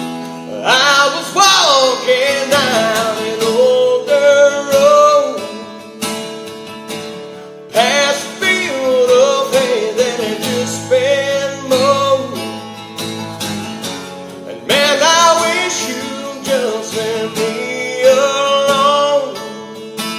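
Country song: acoustic guitar strumming, with a voice singing the melody in three phrases.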